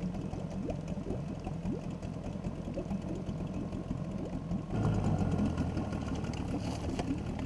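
Small dinghy outboard motor running slowly at low throttle, with a steady low hum and fine rapid ticking. It picks up a little, slightly louder, about five seconds in.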